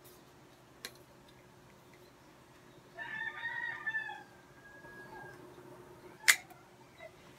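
A rooster crows once about three seconds in, a long call that trails off. A couple of seconds later comes a single sharp click, the loudest sound here, from the plastic tripod being handled, with a smaller click near the start.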